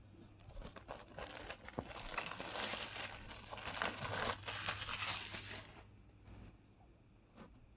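Packaging of a pack of cork pot stands crinkling and crackling as it is handled and opened. The crinkling runs for about five seconds, then dies down to a few faint rustles near the end.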